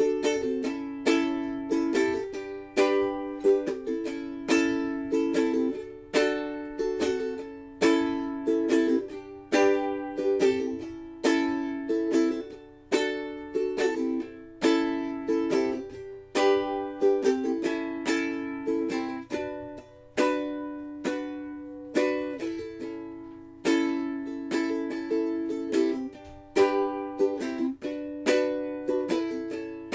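Solo ukulele music: chords played in a steady rhythm, each stroke ringing and fading.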